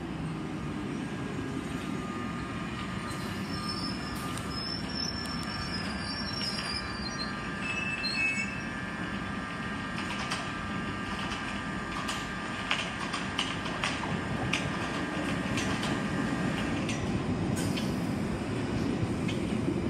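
London Underground Piccadilly line 1973 Tube Stock trains on the move: a continuous rumble of wheels on rail with scattered clicks, and thin high wheel squeals for a few seconds early on. A steady whine runs until about seventeen seconds in as the arriving train draws along the platform, and the rumble grows louder toward the end.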